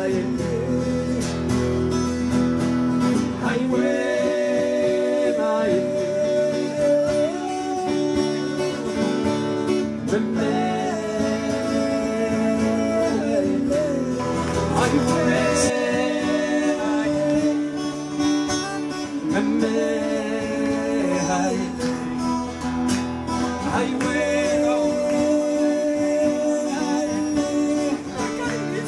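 Live Amazigh song: men singing with strummed acoustic guitars.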